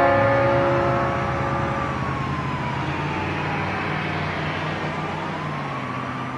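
A siren wailing slowly, rising and falling twice, over a steady low hum of street noise. The last held chord of the music fades out in the first couple of seconds, and everything fades away near the end.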